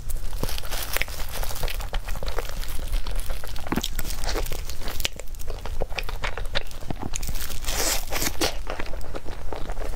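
Close-miked biting and chewing of a soft snow-skin cake filled with cream and sponge cake: many short, wet mouth clicks and smacks.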